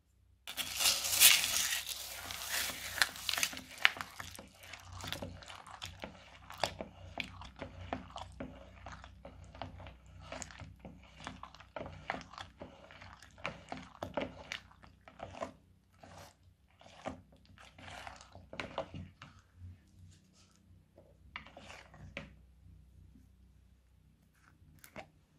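Silicone spatula stirring small plastic beads into wet glue in a plastic bowl: a dense wet crackle of clicking beads, loudest in the first few seconds, then repeated stirring strokes that grow fainter. A small click near the end.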